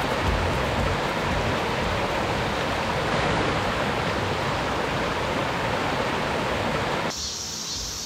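Shallow mountain stream rushing over rocks, a steady wash of water noise. About seven seconds in it cuts off abruptly to a thinner hiss.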